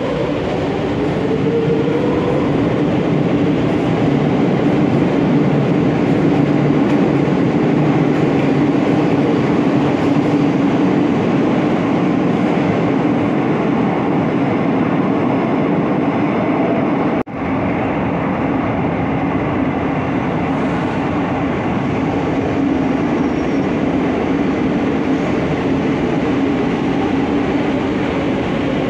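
Madrid Metro trains in an underground station: a train's traction-motor whine rises as it pulls out, then a steady running rumble and rail noise echoes through the tunnel and platform. The sound drops out for an instant about halfway through. A motor whine comes back near the end as a train moves along the platform.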